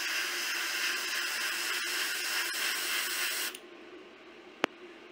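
Airbrush blowing a steady hiss of compressed air onto a drop of primer, cutting off about three and a half seconds in. A single sharp click follows near the end.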